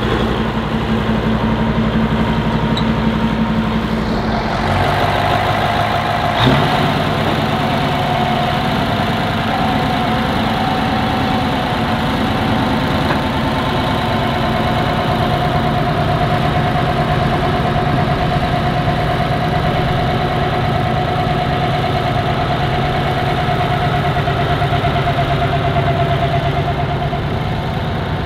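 Big articulated tractors' Cummins 903 V8 diesels running steadily: first the Massey Ferguson's, then, after about five seconds, the Ford FW-60's, with a steady high whine over its engine note.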